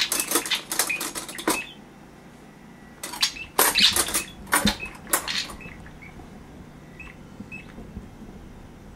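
Metal cutlery clinking and rattling in a kitchen drawer, in two bursts of clatter about three seconds apart, then settling to quiet with a few faint short chirps.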